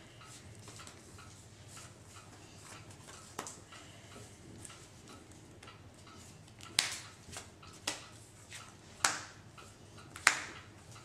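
Magic: The Gathering cards being handled and set down on rubber playmats: a few short, sharp taps and clicks, the loudest four falling in the second half.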